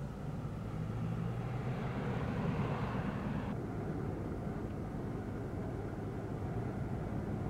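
Car engine running with road noise as a car drives along a street; about three and a half seconds in the sound changes abruptly to the steadier drone of a car heard from inside its cabin while driving.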